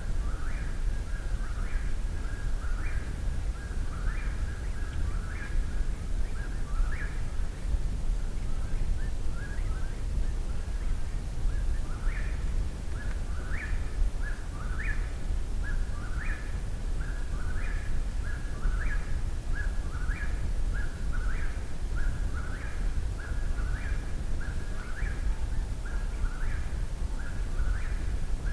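Eastern whip-poor-will singing its 'whip-poor-will' phrase over and over, a little faster than once a second, with no pause. A low steady rumble runs underneath.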